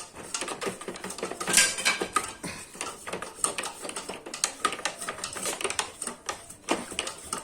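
A small brush scrubbing dust off the plastic vanes of a split air conditioner's blower: a fast, irregular run of clicks and scratches.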